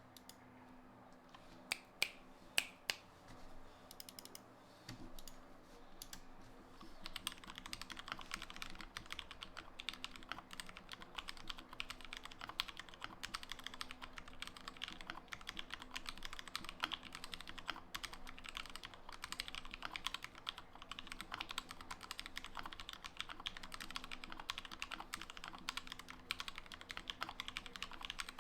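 Anne Pro 2 mechanical keyboard with lubed Gateron Milky Yellow linear switches, OEM ABS keycaps and foam and silicone dampening, being typed on. A few separate key presses come first, then steady fast typing from about a quarter of the way in.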